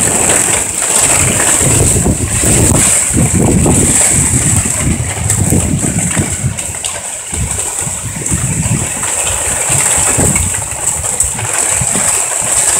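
Storm wind gusting across the microphone, a low, uneven rumble that swells and drops every second or so, over a steady high hiss.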